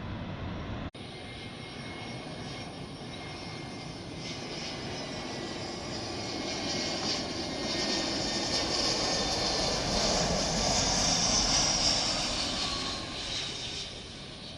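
Airliner flying low overhead on its landing approach. The engine noise builds to a peak with a high whine that slides down in pitch as the plane passes, then fades.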